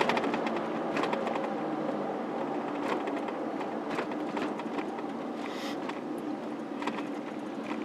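Car cabin noise while driving: a steady hum of engine and tyres on the road, with a few faint clicks.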